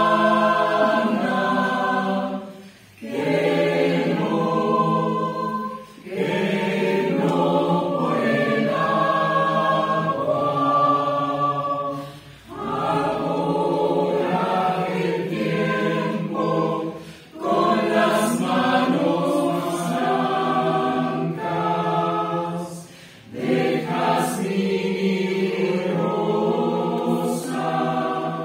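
Mixed choir singing unaccompanied in sustained chords, in phrases of a few seconds each broken by brief breath pauses.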